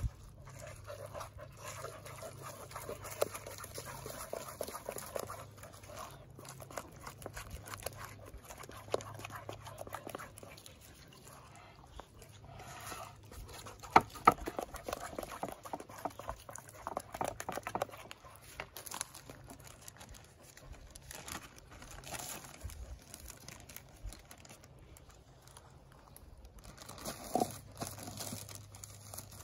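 A dog making small sounds, with scattered light clicks and knocks and two sharp clicks about halfway through.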